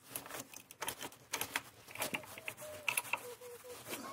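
Irregular light clicks and metallic knocks as a screw-type jack stand's threaded post is worked by hand under the car. A faint wavering thin tone runs through the middle.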